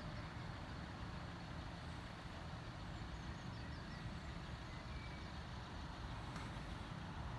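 Steady low rumble of road vehicles idling at a closed level crossing, with a few faint high chirps near the middle.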